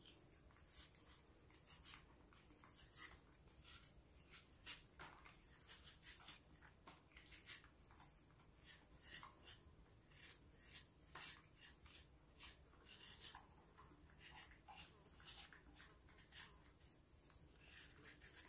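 Faint, short scraping strokes of a knife cutting and peeling the skin of a piece of fruit, dozens of small scratchy ticks, with a few faint high bird chirps now and then.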